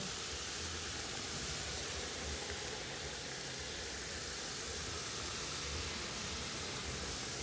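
Meat cooking in a metal pot on the stove, giving a steady, even sizzling hiss.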